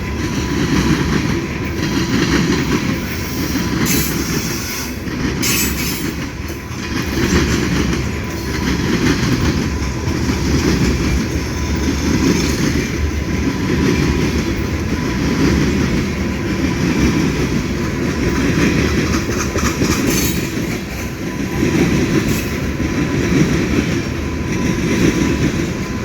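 A train's cars rolling past at close range: a steady rumble with a rhythmic clatter of wheels over the rails, and a few short high wheel squeals.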